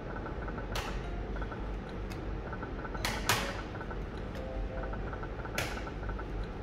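Video slot machine played spin after spin: three sharp clicks about two and a half seconds apart as each spin is started, with faint short electronic tones between them over a steady machine hum.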